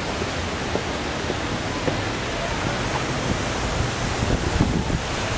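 Steady, loud rush of water falling in a fountain, with a few low bumps about four and a half seconds in.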